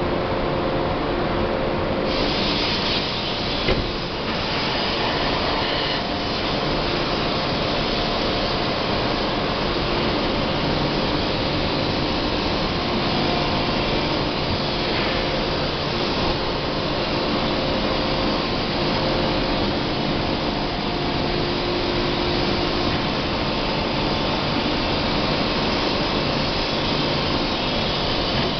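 Steady, loud machinery noise of a forge shop around a working closed-die forging hammer, a dense rushing din with a low hum running through it. One short knock about four seconds in; no regular train of hammer blows stands out.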